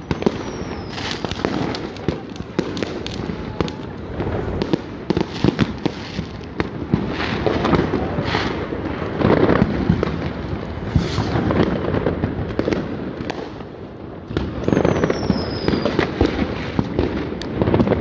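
Consumer fireworks going off continuously: many overlapping bangs and crackles from rockets and firecrackers, thickest around the middle and again near the end. A short falling whistle comes under a second in and another about fifteen seconds in.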